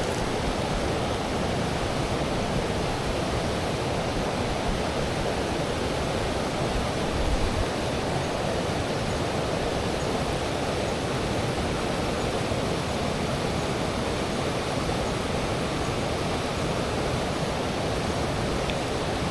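Steady rush of flowing river water, an even noise without breaks.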